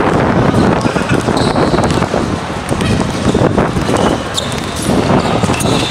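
Pickup basketball game: a basketball bouncing on a hard outdoor court, with short thumps and players' voices under a loud, steady rumbling noise.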